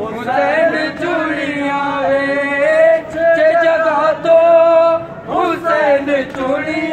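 Unaccompanied male voices chanting a noha, a Shia lament, in long held notes, with a short break about five seconds in.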